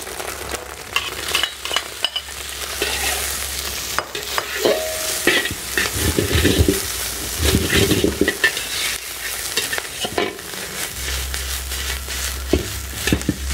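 Egg, garlic, chopped vegetables and meat sizzling in a hot wok as a metal spatula stirs and scrapes against the pan, with frequent clinks of metal on metal.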